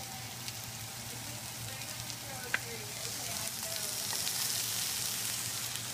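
Chicken frying in oil in a frying pan: a steady sizzle that gets a little louder from about halfway through, with a sharp click about two and a half seconds in.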